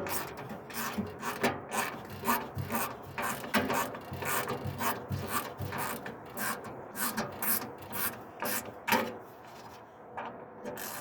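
Small hand ratchet from a micro bit set driving a screw into a wooden mailbox post, with repeated back-and-forth ratcheting strokes, roughly two a second, the pawl clicking and the screw rasping into the wood. The strokes stop near the end as the screw is seated.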